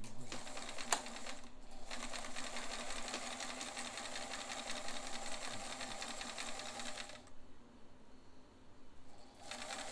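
Vintage Bernina sewing machine running at an even pace, sewing a long straight stitch through fabric as a test stitch to check the gears. It pauses briefly after about a second and a half, stops for about two seconds near the end, then starts again. There is a single sharp click about a second in.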